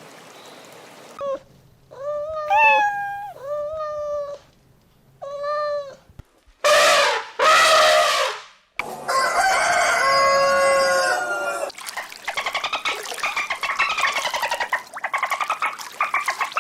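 Chickens and a rooster calling: several separate pitched crowing and squawking calls, two loud harsh calls in the middle, then a fast run of short repeated clucking notes.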